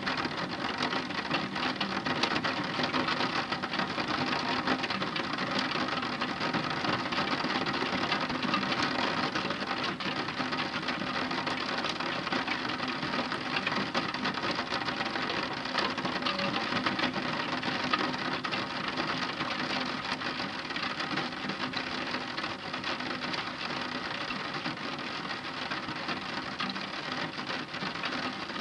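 Heavy rain falling steadily, a dense patter of countless drops on a hard surface.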